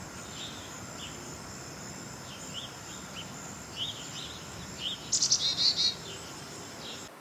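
Songbirds chirping in short calls over a steady high insect drone, with a louder run of quick bird calls about five seconds in.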